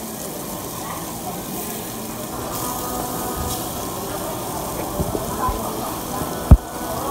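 Meat sizzling steadily on a barbecue grill, with a few low thumps, the loudest about six and a half seconds in.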